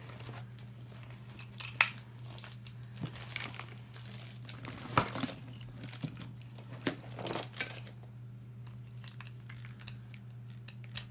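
Small plastic toys being handled and rummaged through, with crinkling and rustling and scattered light clicks and knocks. A steady low hum runs underneath.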